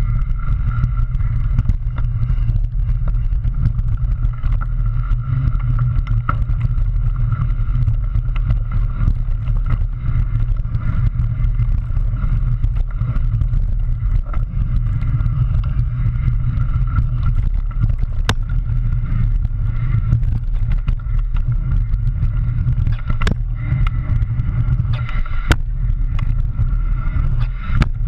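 Steady low rumble of wind and trail vibration on a mountain bike's fork-mounted action camera as the bike rolls down a dirt trail, with a few sharp clicks or knocks in the second half as the bike hits bumps.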